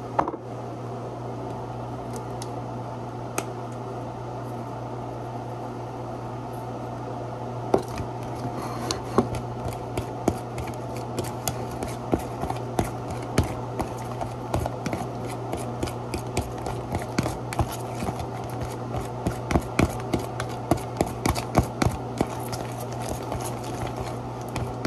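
A steady low hum throughout. From about eight seconds in come frequent light, irregular clicks and taps of a kitchen utensil against a bowl.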